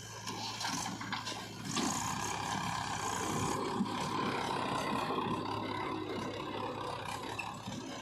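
JCB 3DX backhoe loader's diesel engine running, revving up about two seconds in and staying up as the loader hydraulics work under load.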